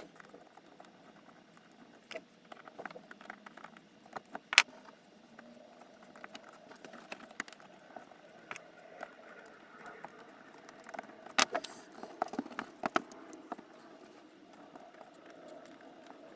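Scattered small metallic clicks and clinks of a screwdriver and small screws working against aluminium servo brackets as a servo is bolted in. There is one sharp click about four and a half seconds in and a cluster of clicks around eleven to thirteen seconds.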